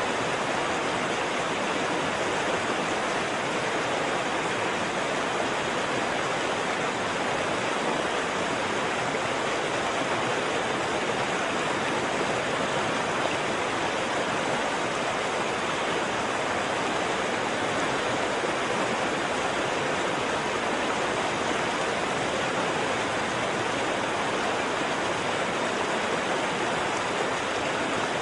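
Waterfall: water falling and rushing in a steady, even roar with no change.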